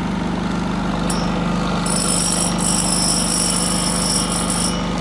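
Westinghouse iGen4500 inverter generator's single-cylinder four-stroke engine running steadily. A high-pitched tone comes in about two seconds in and stops shortly before the end.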